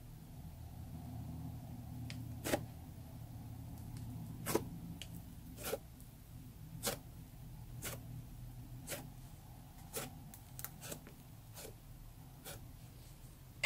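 Thick black slime being stamped with a small metal tennis-racket charm, giving a sharp little click each time the charm is pressed in and pulled out, about once a second from about two seconds in, over a faint low hum.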